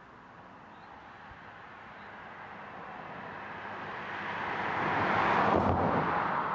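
A vehicle passing by: a rushing noise grows slowly louder, peaks about five seconds in, then starts to fade.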